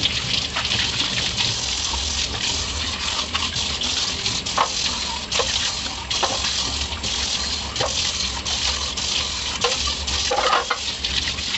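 Kitchen tap running steadily into a stainless steel sink, the stream splashing over hands as a cloth and then a glass container are rinsed under it, with a few brief sharper splashes.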